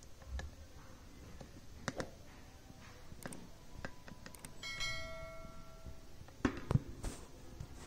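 Small toy pieces being handled, with scattered light clicks and taps. About five seconds in there is a brief bell-like ring, and a couple of louder knocks come a little later.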